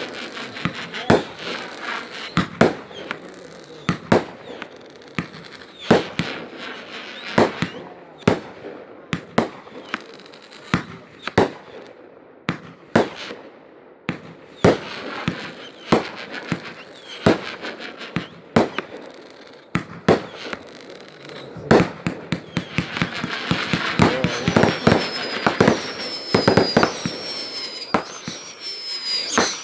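Fireworks going off: a steady run of sharp bangs and pops, with a dense stretch of crackling about 23 seconds in. Near the end come several high whining tones, each falling slightly in pitch.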